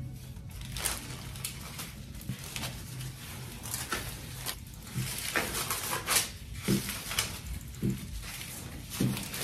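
Gloved hands laying barbari bread dough onto a foil-lined baking tray and patting and pressing it flat: irregular soft pats and foil crinkles.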